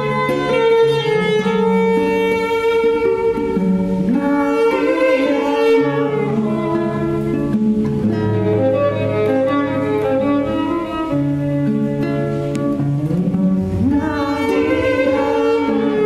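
Violin and acoustic guitar playing together: long bowed violin notes that slide up in pitch a few times, over the guitar's plucked accompaniment.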